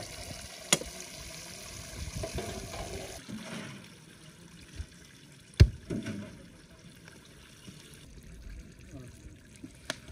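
Water trickling for about three seconds, then a few sharp clicks and one loud knock about halfway through.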